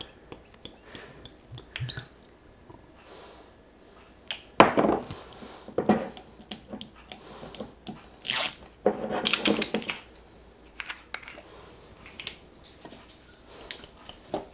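Thick barbecue sauce pouring from a bottle onto shredded pork in a slow cooker: irregular wet glugs and splats, loudest in a few bursts around the middle, with small clicks and squelches from the meat being handled.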